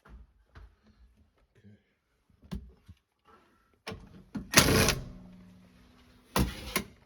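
Handling noises at a furnace: a few light knocks and clicks, then two loud noisy bursts about two seconds apart, the first followed by a faint steady hum.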